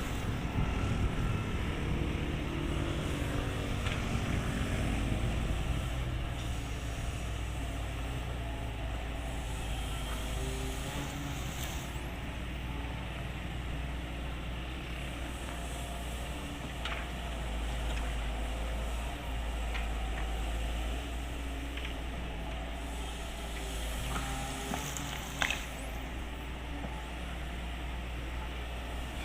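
Excavator's diesel engine running steadily, a little louder in the first few seconds, with a few short sharp clanks later on.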